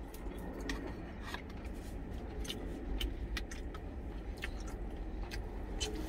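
Sharp clicks of an eating utensil against a stainless steel bowl, mixed with chewing mouth sounds, over a low steady rumble in the truck cab.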